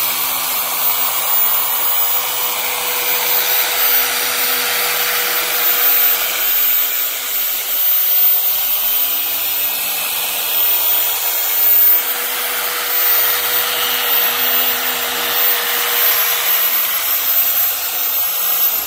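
Handheld electric polisher with a small foam pad running at a steady whine while buffing a plastic headlight lens with polish. Near the end the motor is switched off and its whine falls away.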